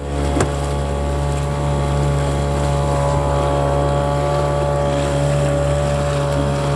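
An engine running steadily at a constant speed, a loud, even drone.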